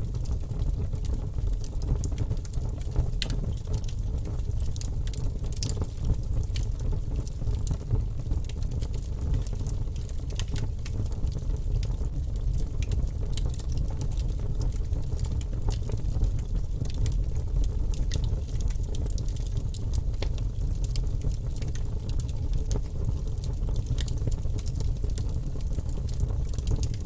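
Fire burning in a fireplace: scattered sharp crackles and pops over a steady low rumble of the flames.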